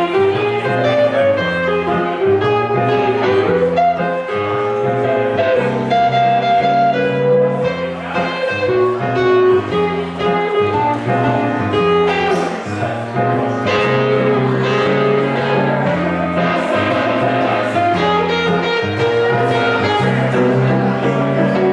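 Live music from an archtop electric guitar and a stage keyboard playing an instrumental passage, with steady, evenly repeating low bass notes under a moving melody line.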